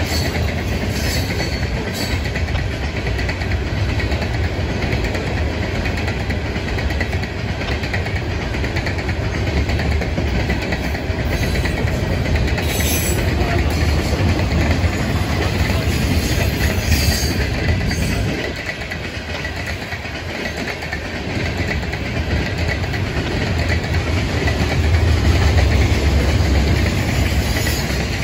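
Mixed freight cars of a Florida East Coast Railway freight train rolling past: a steady loud rumble and clatter of wheels on rail, with a few brief high squeaks. The low rumble eases for a couple of seconds about two-thirds of the way through, then builds again.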